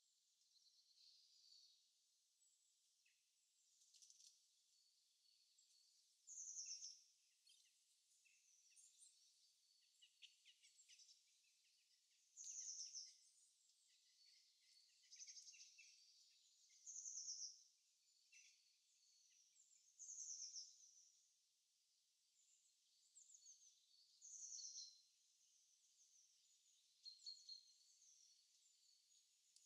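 Faint birdsong from a nature-sounds background track: short high chirps repeating every two to four seconds, with softer twittering between.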